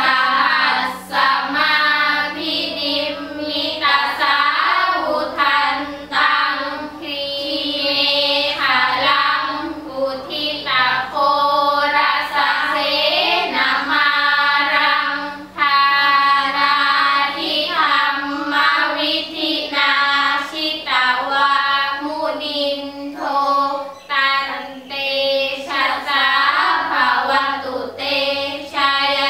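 A small group of girls chanting Thai Buddhist sarabhanya verses in unison: a melodic, sung recitation in short phrases, each ending on a held note.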